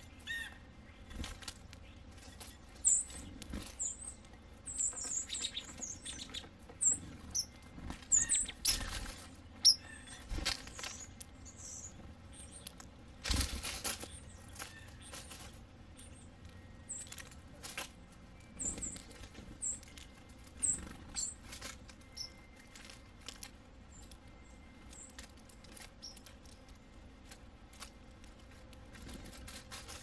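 Sparrows feeding at a seed dish: many short, high chirps and call notes, with scattered pecking and rustling in dry leaves and a louder burst about 13 seconds in. The chirping thins out in the last third.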